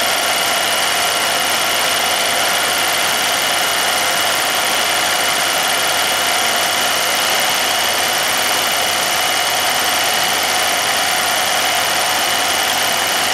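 Film projector running steadily: a constant mechanical whir with a thin high whine through it.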